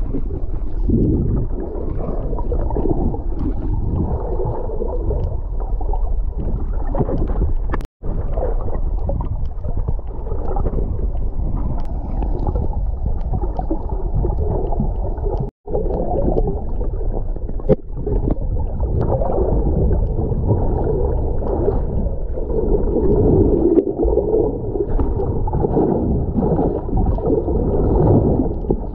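Muffled underwater sound picked up by a waterproof camera held below the surface: a steady low rumble and gurgle of water moving against the housing. It cuts out for an instant twice.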